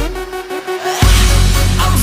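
Electronic dubstep-style background music: a rising sweep, then a heavy bass drop about a second in.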